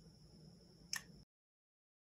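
A single short, sharp click about a second in, a smartphone camera shutter as a photo is taken on the phone, over faint room tone that cuts off suddenly to silence just after.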